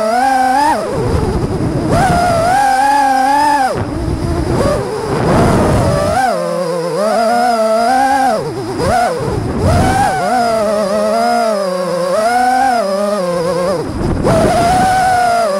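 FPV freestyle quadcopter's brushless motors and propellers whining, the pitch rising and falling with the throttle, broken several times by short stretches of rushing noise.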